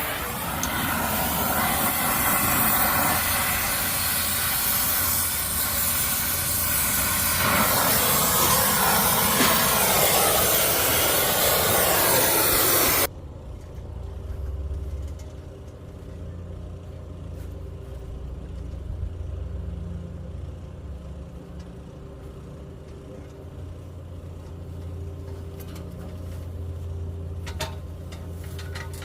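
Loud, steady hiss of pressurised gas rushing out of a freshly cut copper refrigerant line on an air-conditioning condenser. It stops suddenly about 13 seconds in, leaving a low steady hum.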